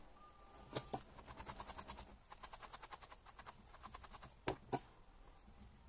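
A felting needle jabbing repeatedly into a ball of dog-hair wool felt, making rapid, even, light clicks about nine a second. A pair of louder clicks comes near the start and another near the end.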